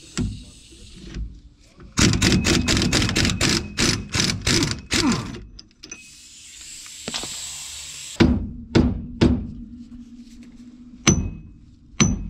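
Metal tools working on a car's wheel spacer and hub: a few seconds of rapid metallic clattering, then a short hiss, then a handful of sharp metal knocks, some of them ringing briefly.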